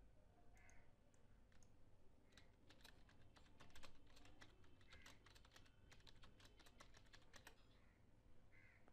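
Faint typing on a computer keyboard: a quick run of key clicks from about two seconds in until about seven and a half seconds in.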